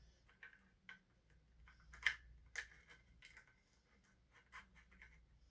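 Faint scattered clicks and small rattles of a tripod's pan head and quick-release plate being handled and fitted, with a couple of sharper clicks about two seconds in.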